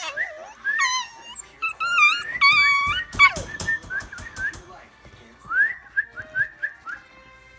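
Scottish terrier puppies whining and squealing in high, wavering cries that come and go, with a quick run of sharp clicks about three seconds in.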